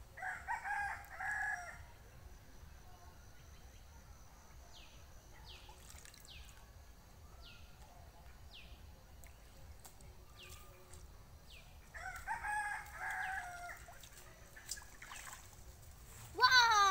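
A rooster crowing twice, once at the start and again about 12 seconds in, with a small bird's short, high, falling chirps repeating in between. Just before the end comes a loud, short cry that sweeps up and then down in pitch.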